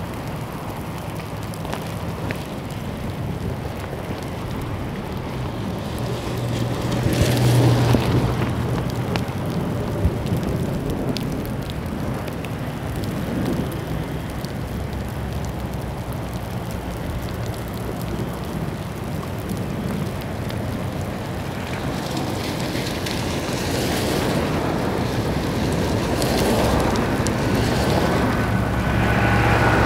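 Steady rain with cars passing on a wet road, their tyres hissing through the water; one goes by about seven seconds in, and more approach near the end.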